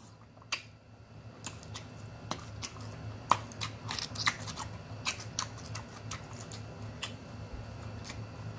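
Close-miked chewing of a mouthful of pork rib: irregular wet mouth clicks and smacks, about two or three a second, over a faint low hum.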